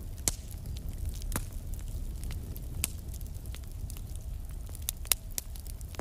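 Fire crackling, with irregular sharp pops and snaps over a low, steady rumble. The loudest pop comes about five seconds in.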